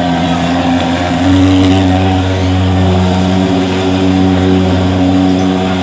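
Portable mosquito fogging machine running with a loud, steady engine drone, its pitch stepping up slightly about a second in.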